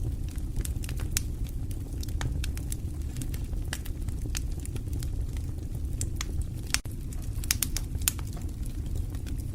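Wood fire crackling: irregular sharp pops and snaps over a steady low rumble of burning, with a cluster of louder pops near the end.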